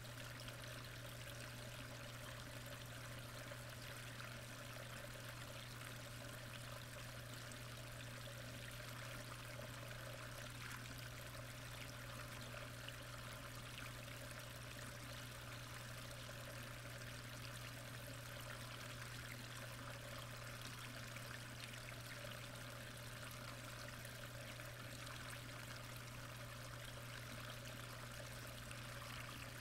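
Steady, faint rush of moving water heard underwater in a koi pond, with a constant low hum beneath it.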